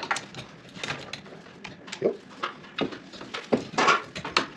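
Scattered clicks and light metal clinks from hand work on a ceiling fan: screws being backed out with a hand screwdriver and metal fan parts being handled.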